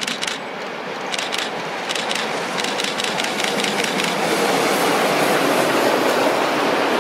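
Steam locomotive working hard as it approaches and passes, its exhaust beats coming about three to four a second, then the steady rumble and rail clatter of its passenger coaches rolling by, growing louder near the end.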